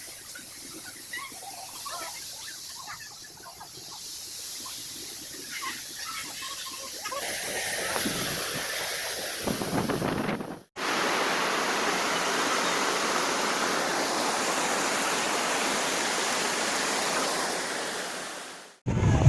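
Steady rush of falling water, such as a waterfall, broken by two abrupt cuts. Small chirps, like birds, come through the quieter first part.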